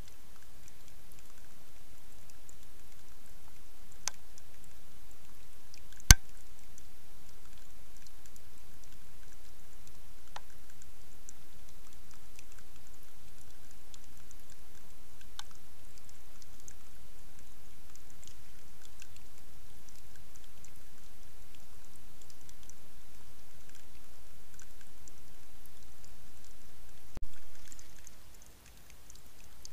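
Steady hiss of water running at a beaver dam, with a few scattered sharp clicks, the loudest about six seconds in.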